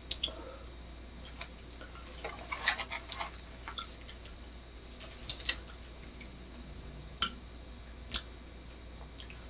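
Scattered light clicks and rustles of metal chopsticks and lettuce leaves as a lettuce wrap is put together. The sharpest tick comes about five and a half seconds in.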